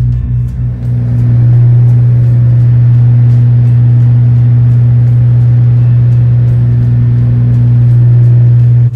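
Tugboat's engines running at a loud, steady drone while towing a barge, heard from the aft deck. The sound drops off abruptly near the end.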